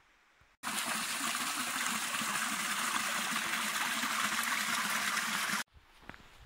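Small rocky creek running and splashing over stones, a steady rush of water that starts suddenly about half a second in and cuts off abruptly near the end.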